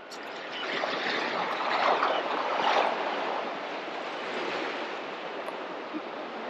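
Small sea waves washing and splashing over rock armour blocks, swelling for a moment about two to three seconds in, then settling to a steady wash.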